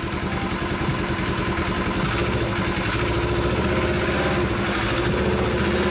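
Polaris RZR 900 side-by-side's engine running at idle, a steady hum that grows a little louder over the first couple of seconds and then holds.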